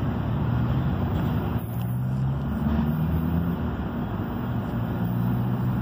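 Freight train of autorack cars rolling past on steel wheels and rails: a steady rumble with a low hum that shifts slightly in pitch.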